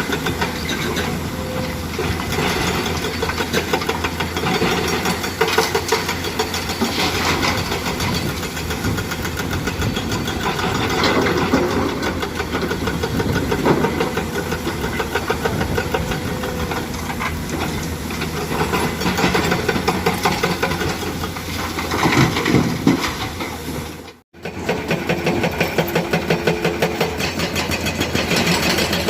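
Komatsu PC200 excavator's diesel engine running under working load, its level rising and falling as it digs and swings. The sound drops out for a moment near the end.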